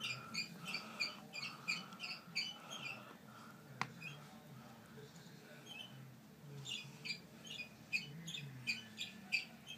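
A small animal chirping or squeaking in a quick series of short high calls, about three a second, that pause for a few seconds midway and then start again. A single sharp click sounds about four seconds in.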